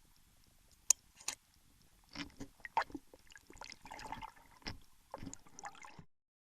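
Water splashing and sloshing with irregular knocks and a sharp click about a second in; the sound cuts off suddenly near the end.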